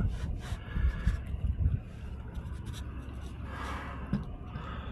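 Engine oil running out of a Cat C12 diesel's oil pan in a steady stream and splashing into a catch pan, the drain plug held partly in to slow the flow. Low rumbling thumps come in the first two seconds.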